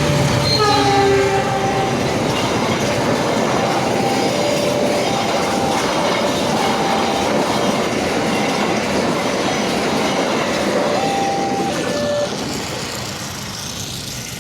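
A train passing over a level crossing, its wheels running over the rails in a steady loud rumble and clatter, with a horn blast about half a second in. The crossing's electronic alarm tones keep sounding underneath, and the train noise dies down near the end.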